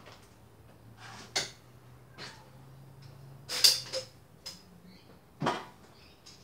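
Several short clicks and knocks of hand-handled objects and tools being picked up and set down, spaced about a second apart, the sharpest about three and a half seconds in.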